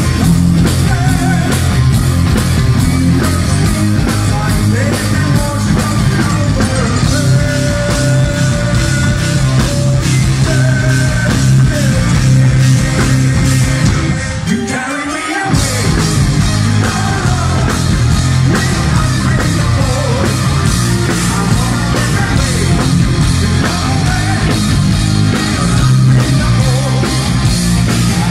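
Power metal band playing live, heard through a phone's microphone in the crowd: a singer holding long sung notes over distorted guitars, bass and drums. About halfway through the low end drops out for a second or so, then the full band comes back in.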